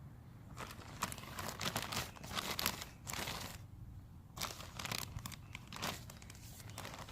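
Plastic topsoil bag crinkling and rustling in irregular bursts as topsoil is poured out onto a bare lawn patch, with a short pause about halfway through.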